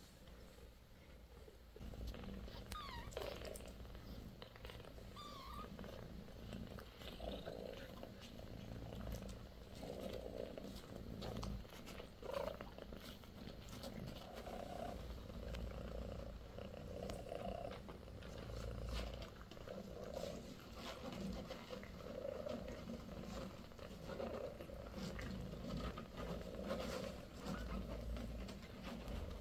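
British Shorthair cats purring steadily in slow, even pulses while the kittens nurse.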